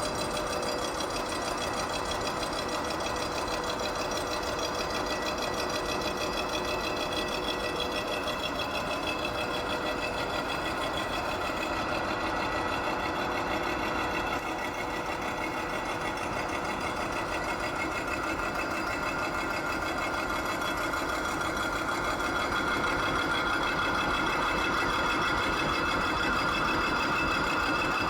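Hydraulic vertical milling machine running: a steady mechanical whine with several held tones. It grows a little louder about three-quarters of the way through.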